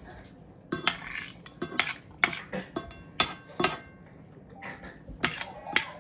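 Metal fork and spoon clinking and scraping on a ceramic dinner plate while eating, in irregular sharp clinks, some ringing briefly.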